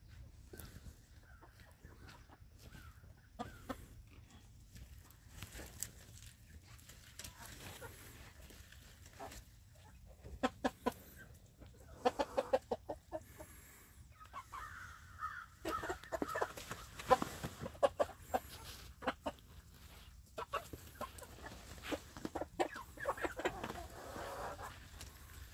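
A flock of hens clucking and calling, louder and busier in the second half, with runs of sharp taps and clicks among the calls.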